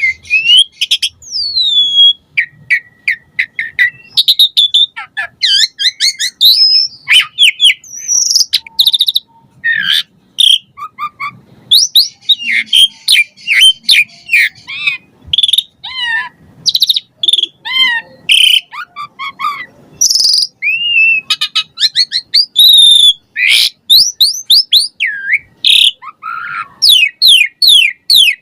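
Asian pied starling (jalak suren) in full song: a long, fast, varied stream of whistles, rising and falling slurs, harsh chatters and clicks, packed with borrowed phrases of other birds, with hardly a pause.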